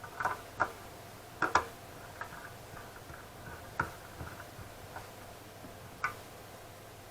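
Light clicks and taps of small hard parts being handled while working on a graphics card, scattered irregularly, the loudest cluster about a second and a half in.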